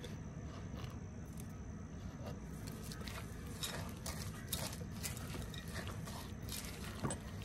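Silicone spatula stirring a thick mix of rolled oats and sliced almonds in a glass bowl: quiet, irregular soft scrapes and clicks.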